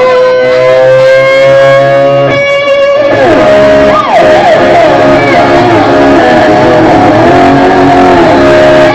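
Rock music led by electric guitar: a long held note that glides slowly upward, then from about three seconds in, a run of quick bending, sliding notes over sustained chords.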